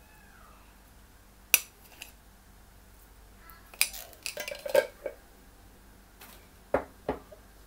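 Metal spoon and kitchen utensils clinking against hard containers. There is a single sharp clink about one and a half seconds in, a run of clinks and knocks around four to five seconds, and two more clinks near the end.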